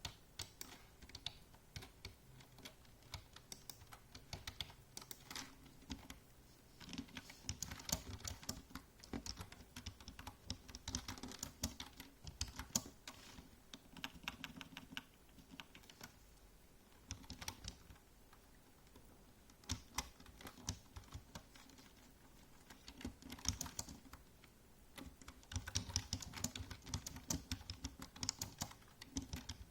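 Typing on a computer keyboard: quick runs of key clicks in bursts of a few seconds, with short pauses between them.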